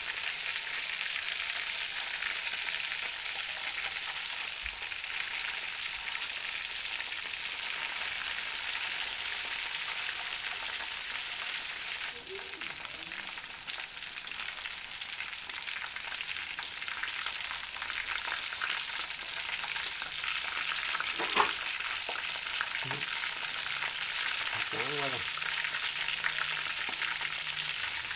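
Chicken pieces frying in hot oil in a pan, a steady sizzle with fine crackling; the chicken is already cooked through and browned. One sharp tap about three-quarters of the way through.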